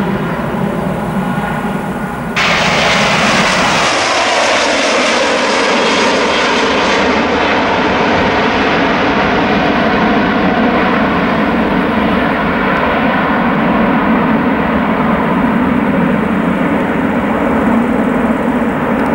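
Jet airliner engines at take-off power. First a British Airways Airbus A320-family jet climbing away, then after an abrupt cut about two seconds in, a Brussels Airlines Airbus A330 passing and climbing away. The A330's engine whine falls in pitch over several seconds and settles into steady jet noise.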